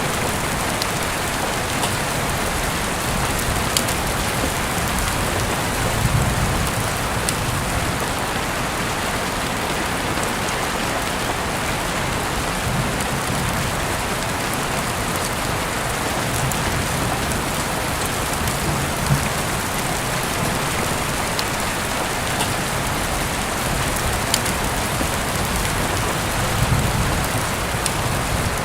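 Steady, even rain falling on a surface, with a few sharp clicks and some low swells now and then.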